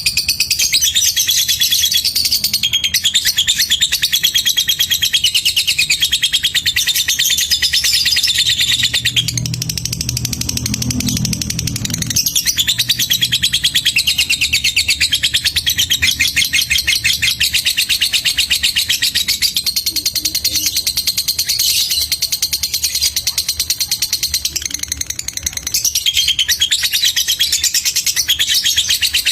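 Lovebird singing a long, unbroken song of very rapid high chattering, the fast ticking 'ngetik' delivery wanted in competition lovebirds. It barely pauses, with only short breaks about 9 s and 25 s in.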